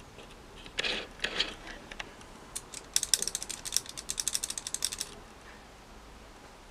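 Fast metallic clicking, about ten clicks a second for some two seconds, that stops abruptly: a hand turning the metal brace tube between an RC crawler's chassis rails on its threaded rod. It follows two short handling rustles about a second in.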